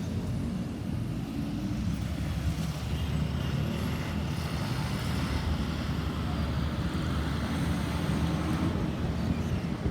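Vehicle noise: a steady low engine rumble with a hiss of tyre or air noise that swells through the middle and eases near the end, with no siren sounding.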